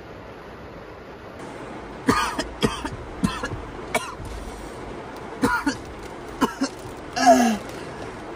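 Steady rain hiss at first, then a man coughs in a string of short hacks and ends with a longer, falling groan.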